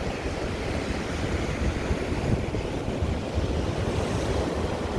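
Rough sea breaking and washing over coastal rocks, a steady surf noise, with wind rumbling on the microphone.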